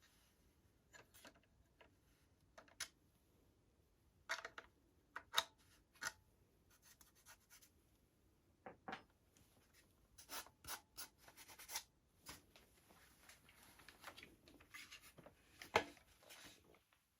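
Handling noises from an airsoft gun being unboxed and assembled: scattered clicks, taps and short rubbing sounds at irregular intervals, the sharpest about five seconds in and again near the end.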